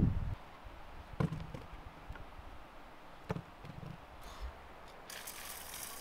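A few light knocks, the two loudest about a second in and just past three seconds, then from about five seconds a fine hiss of salt grains sprinkled onto sliced mushrooms in an enamel bowl.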